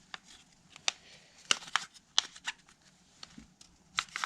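Irregular sharp plastic clicks and taps from a cheap flip phone being handled as its removable back cover is taken off to get at the battery.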